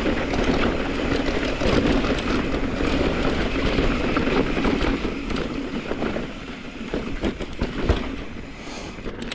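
Mountain bike rolling fast down a rocky dirt trail: a steady rumble of knobby tyres and rattling bike over rocks, with wind buffeting the microphone. After about six seconds it eases a little and turns into scattered sharper knocks and clicks.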